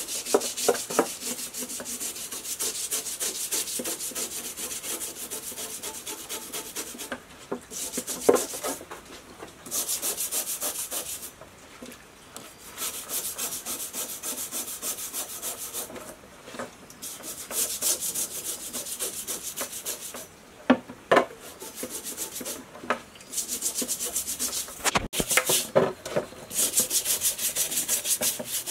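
Small stiff brush scrubbing a rusty steel sword blade in fast back-and-forth strokes, in runs of a few seconds with short pauses, cleaning rust off the blade. A few sharp knocks fall between the runs.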